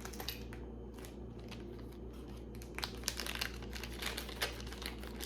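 Crinkling of plastic packaging and light clicks of costume jewelry being handled, with the clicks coming more thickly from about the middle of the stretch.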